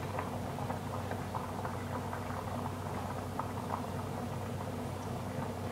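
A pot of pasta at a hard boil, bubbling with many small pops and ticks over a steady low hum. It is bubbling up a lot, a sign the heat is too high.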